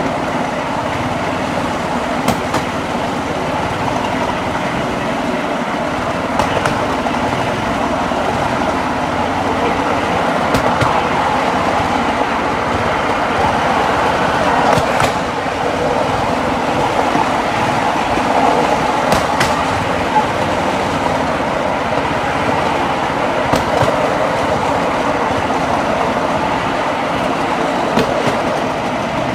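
Small engine of a motorized rail trolley running steadily as it rolls along the track, with a sharp click from the wheels about every four seconds, typical of rail joints.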